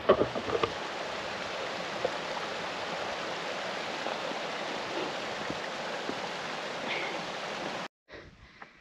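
Running water, a steady rushing like a fell stream. It cuts off abruptly near the end, leaving a much fainter background.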